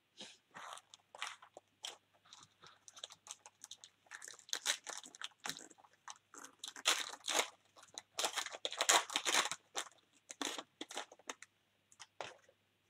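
Foil wrapper of a Panini Prizm baseball hobby pack being torn open and crinkled by hand, in an irregular crackle that is loudest in the second half and dies away near the end.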